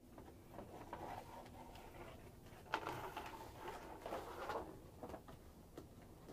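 Faint clicks and scuffs of a Labrador's claws on a wooden deck, and a plastic frisbee scraping and knocking on the boards as the dog noses and mouths it. There is one sharp knock a little under three seconds in, followed by about two seconds of scraping.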